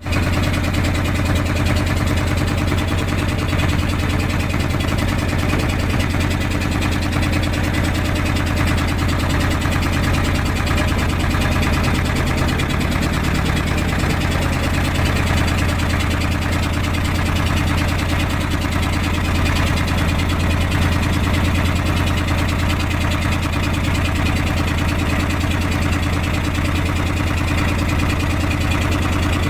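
Fishing boat engine running steadily at a constant speed: an even low drone with a steady hiss over it.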